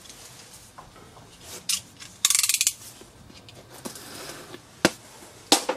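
Snap-off utility knife: a quick run of ratcheting clicks as the blade is slid out, then the blade cutting the packing tape along the edge of a cardboard box, with two sharp clicks near the end.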